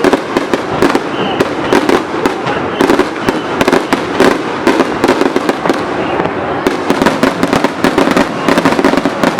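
Fireworks going off in a dense barrage: many sharp bangs and crackles, several a second, without a break.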